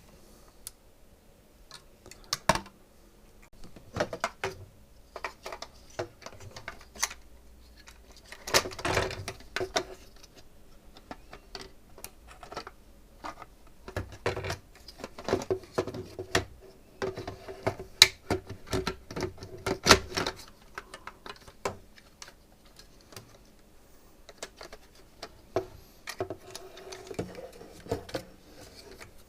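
Irregular clicks, taps and knocks of the small hard parts of a SodaStream soda maker being handled during disassembly, with busier stretches of clatter in the middle.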